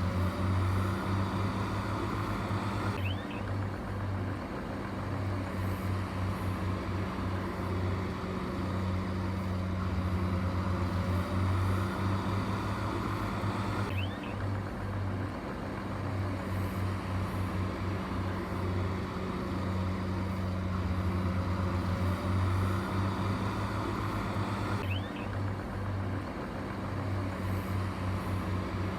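Low, steady hum of a heavy diesel engine running, the same stretch of sound repeating about every eleven seconds like a loop.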